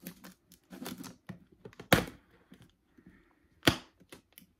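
Scissors clicking and snipping at the plastic wrap of a cardboard box: a scatter of sharp clicks, with two louder snaps, one about two seconds in and one nearly two seconds later.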